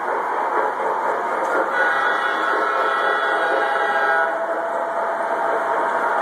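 O gauge model trains running on the layout's track, a steady whirr of motors and wheels. A locomotive's sound-system horn sounds from about two seconds in until about four seconds.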